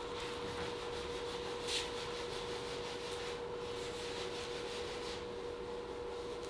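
Light rubbing of a strip worked along a fiberglass car fender, a steady scratchy hiss with a brief louder scrape about two seconds in, over a constant electrical hum from shop equipment.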